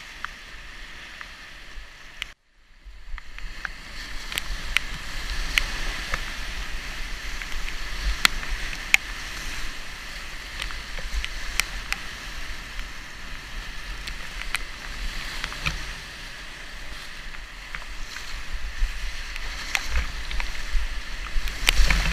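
Whitewater rapids of the Madison River at high spring flow, heard from inside a kayak: a steady roar of rushing water with frequent sharp splashes of waves against the boat and the microphone. The sound cuts out for about half a second just over two seconds in, and a loud burst of splashing comes near the end as the bow plunges into a breaking wave.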